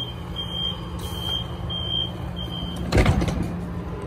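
Five short, high electronic beeps at an even pace, about one and a half a second, over the steady low hum of a high-speed train standing at the platform. About three seconds in there is a single loud knock.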